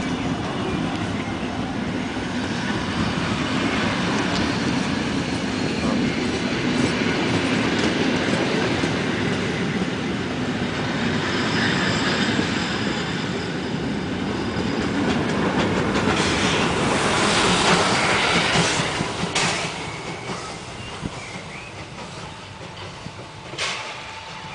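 Old passenger coaches rolling slowly past on the rails as a steam locomotive pushes them back, wheels running over the rail joints. The noise grows loudest about two-thirds of the way through, then eases off as the train moves away.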